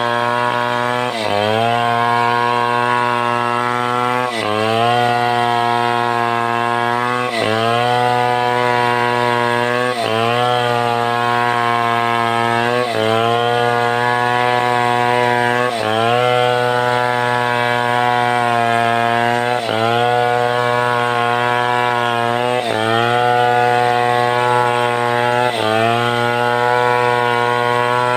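Stihl 070 two-stroke chainsaw running at high revs while sawing timber. Its pitch dips sharply about every three seconds as it bogs under load, then climbs back.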